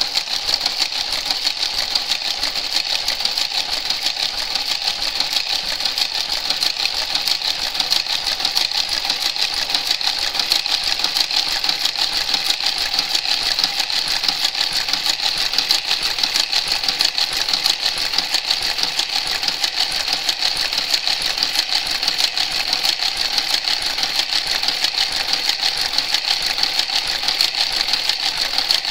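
Motorised Brother garter carriage travelling along a knitting machine's needle bed, running steadily with a rapid, even clicking as it works the cast-off row stitch by stitch, linking the knitting into a seam.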